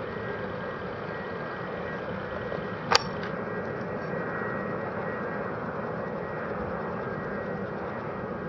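Airbus A380's Engine Alliance GP7200 turbofans running at low thrust as the aircraft taxis: a steady rushing noise with a faint high tone in it. A single sharp click about three seconds in.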